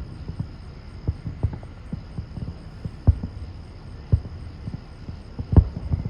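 Fireworks shells bursting: a string of low booms and thumps at irregular intervals, the loudest about three, four and five and a half seconds in.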